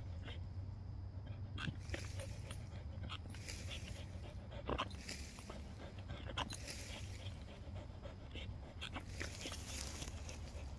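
A pit bull panting, with scattered clicks and knocks, over a steady low hum.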